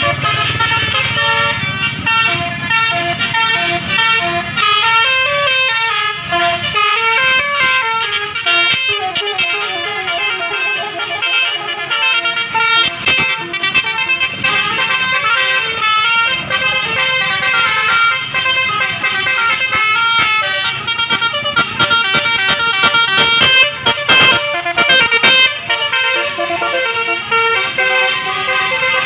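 Basuri multi-trumpet musical air horn on a bus playing a long telolet melody: a fast run of short notes stepping up and down in pitch.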